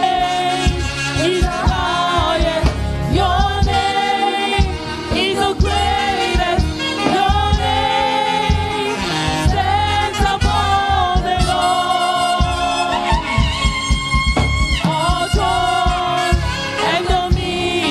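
Live gospel praise singing, voices carrying a wavering melody over instrumental accompaniment with a steady low beat.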